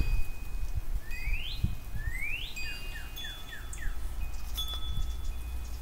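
Wind chimes ringing in thin sustained tones while a songbird sings two rising whistled notes and then a quick run of five short falling notes, over a low wind rumble.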